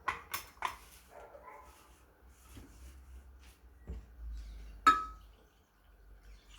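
Hard clicks and clatter from handling a blender. Three quick sharp clicks come first, then a thud about four seconds in and one loud, sharp clack with a brief ring just before five seconds.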